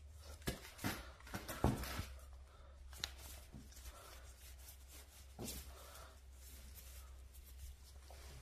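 Tire plug kit's reamer tool being pushed and worked into a puncture in a flat rubber tire's tread: a run of short scrapes and clicks in the first two seconds, a sharp click about three seconds in, then fainter scratching.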